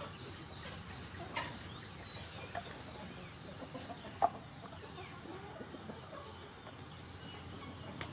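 A few separate taps of a kitchen knife slicing potato against a wooden chopping board, the loudest about four seconds in.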